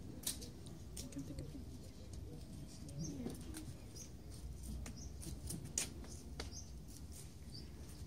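Low, indistinct murmur of people greeting one another, with scattered sharp clicks and a few short, high chirps.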